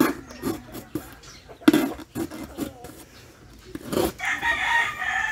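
A few sharp knocks, then a rooster crows, one long call starting about four seconds in.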